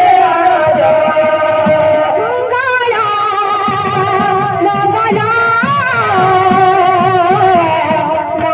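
Live Sambalpuri kirtan music: a woman singing a wavering, ornamented melody through a microphone over a fast, steady beat of barrel drums, about four strokes a second.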